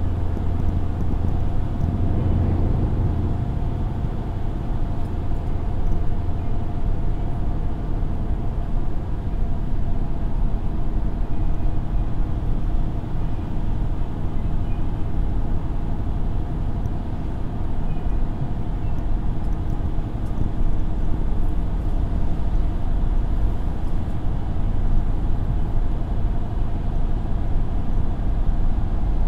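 Steady engine and tyre rumble of a road vehicle driving along, heard from inside it, with a deeper hum in the first few seconds.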